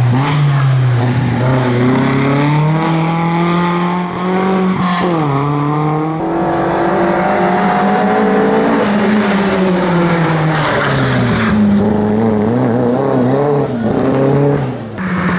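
Rally car engine revving hard. The pitch climbs for several seconds, drops sharply about five seconds in, then rises again, and it falls and wavers with throttle blips near the end.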